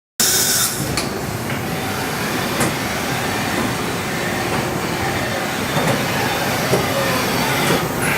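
Haas VF-2 CNC vertical machining center running: a steady, dense mechanical noise with a few sharp clicks and knocks, about a second in, near three seconds and again near seven.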